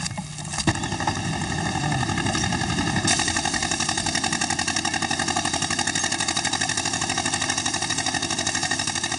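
Engine-driven quarry machinery running steadily with a fast, even pulsing beat. It builds up over the first second or so, after a single knock.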